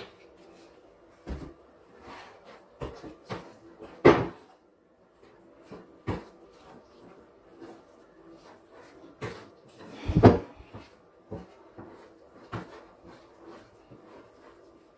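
Hands mixing sticky chapati dough in a glass bowl on a countertop: irregular soft knocks and taps, with two louder thumps about four and ten seconds in.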